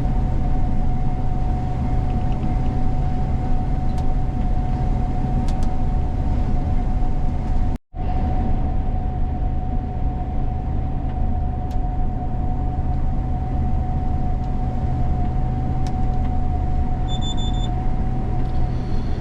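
Gleaner combine running steadily while harvesting soybeans: a constant low drone with a steady high whine over it. The sound drops out for an instant a little before halfway, and a short high beep sounds near the end.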